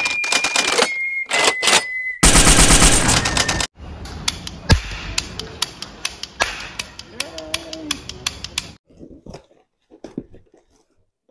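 Loud, rapid gunfire-like bangs, then a run of sharp pops from a toy cap gun being fired again and again. Near the end this gives way to quieter scattered handling sounds.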